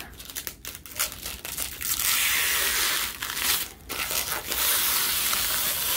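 Blue protective plastic film being peeled off a flat metal plate, crinkling and tearing. It comes in short scratchy bursts for the first two seconds, then two longer stretches of steady peeling. The film is stuck on firmly.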